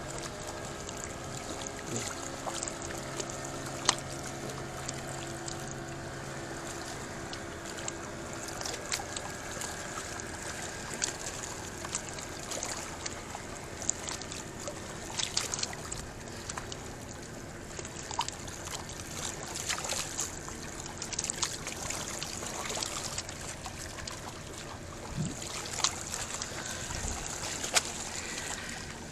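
Water lapping and trickling against a pier, with scattered sharp clicks and knocks. A steady motor hum sounds under it for the first several seconds, then fades.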